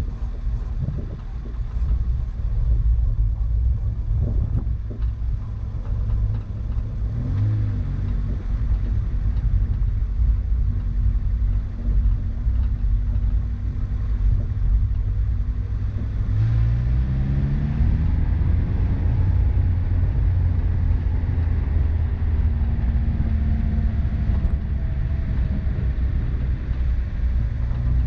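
Car engine running under way over rough ground, with a heavy low rumble and scattered knocks and bumps in the first several seconds. About halfway through the engine note climbs over a couple of seconds and then holds steady at the higher pitch.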